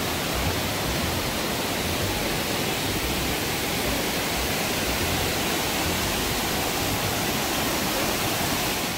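Waterfall rushing: a loud, steady roar of falling water.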